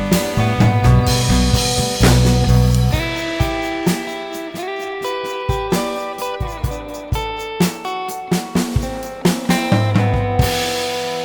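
Background music: guitar with a drum kit keeping a steady beat.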